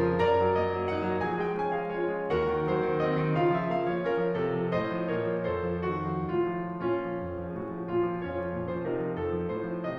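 Background piano music: a melody of short notes over held low bass notes.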